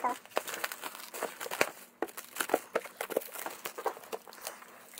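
Clear plastic wrapping film crumpled and handled by hand, giving a dense, irregular run of crinkles and crackles.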